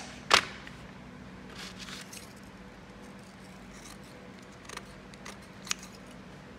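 Metal scissors snipping through a disposable surgical face mask: a few short, sharp snips, the loudest just after the start, with a light rustle of the mask's fabric between them.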